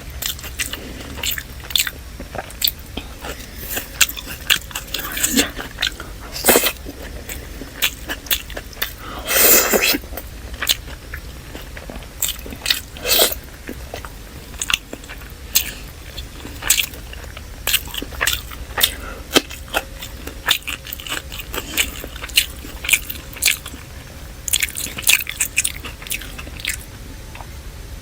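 Close-miked chewing and biting of chicken biryani and salad: many short wet clicks and crunches throughout, with a longer, louder crunching noise about nine seconds in.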